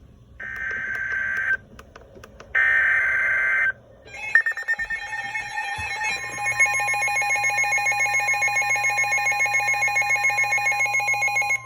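Emergency Alert System broadcast tones: two short, harsh, buzzy data bursts of the SAME header, then the long steady two-tone attention signal, which cuts off suddenly at the end.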